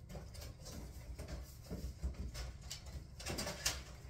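White plastic clothes hangers clicking and children's clothes rustling as the garments are put on the hangers, a run of small clicks with a sharper one near the end.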